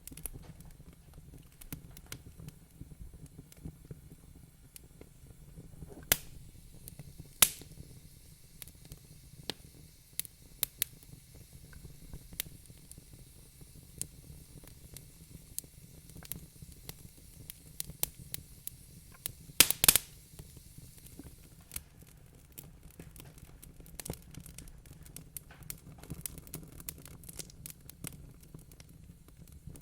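Wood fire crackling in a fireplace: scattered sharp pops and snaps over a low steady rumble. A few pops stand out, the loudest a quick cluster about two-thirds of the way through.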